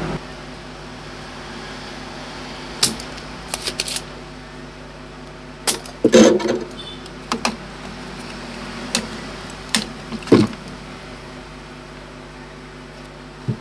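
Scattered sharp clicks and knocks of parts and tools being handled on a TV repair bench, about a dozen in all, over a steady low hum.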